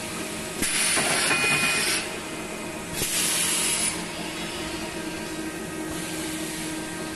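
Automatic centerless grinding line running with a steady machine hum, broken twice by loud bursts of hissing, each about a second long.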